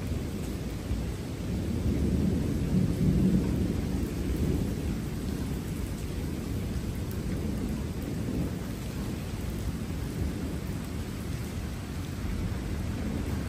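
Thunder rolling: a long low rumble that swells about two seconds in and slowly fades.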